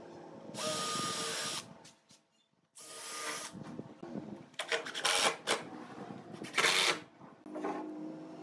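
Makita cordless drill/driver driving wood screws into a pine board, in about four short runs of the motor with brief pauses between them.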